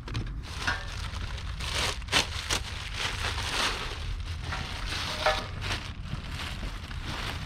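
Handling noise: rustling with scattered sharp clicks and a few short metallic clinks, over a steady low hum.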